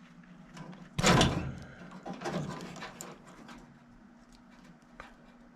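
Sudden clatter and scraping from handling parts of a furnace about a second in, followed by a few smaller knocks, over a faint steady hum.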